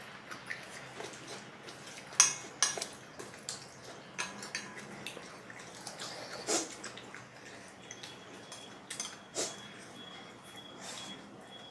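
Eating utensils clinking and scraping against a bowl of noodles: several sharp clinks a second or more apart, the loudest about two seconds in.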